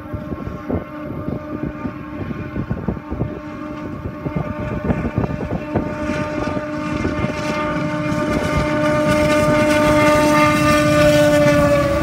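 Westbound CN intermodal train approaching and passing, led by EMD SD75I and SD60 diesel locomotives. The sound builds steadily, with sustained steady tones over a rumble, and the tones dip in pitch as the lead units pass near the end.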